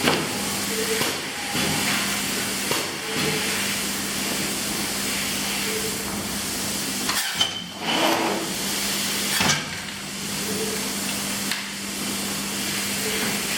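Factory machinery running with a steady hiss and a low hum, changing briefly every second or two.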